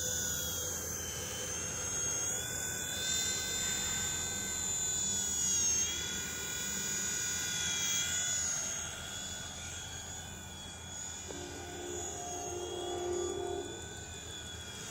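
WLToys V911 mini RC helicopter flying, its small electric motors and rotor giving a high whine. The pitch wavers and dips as the throttle changes.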